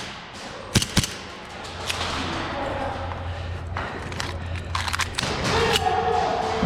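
Sharp cracks of airsoft guns firing: two about a second in, another near two seconds, and a quick cluster around five seconds, over a low steady hum.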